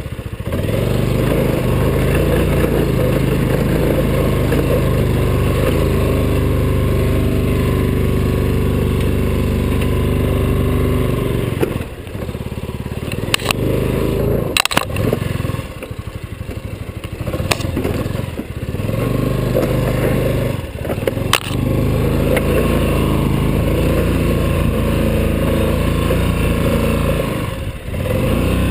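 Yamaha Riva scooter engine running under throttle as it is ridden off-road. The engine note drops and picks back up several times as the throttle comes off and on. Several sharp knocks come through the middle stretch.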